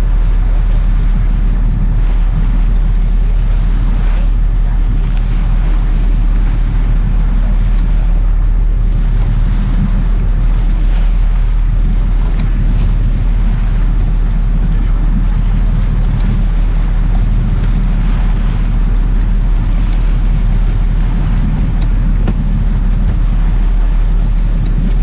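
Sport-fishing boat's engine running with a steady low rumble, wind buffeting the microphone, and water churning and splashing against the hull where a hooked blue marlin thrashes alongside.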